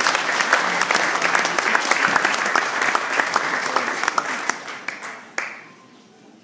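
Audience applauding: many hands clapping together, dying away about five seconds in with a last single clap.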